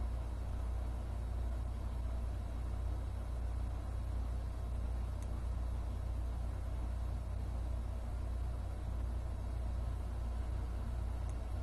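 A steady, unchanging low rumble with a faint hiss over it; no speech or music.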